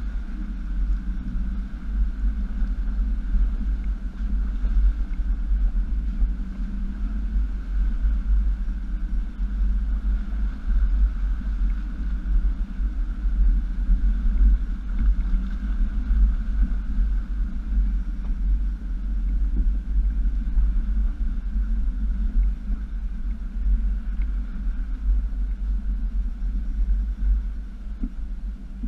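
A 2007 Jeep Wrangler Unlimited (JKU) running as it crawls up a shallow, rocky creek bed: a steady low rumble of engine and drivetrain.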